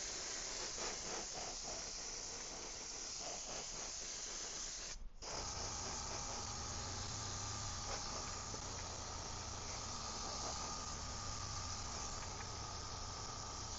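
Airbrush spraying bronze paint in a steady hiss. It breaks off briefly about five seconds in, then resumes with a low hum underneath.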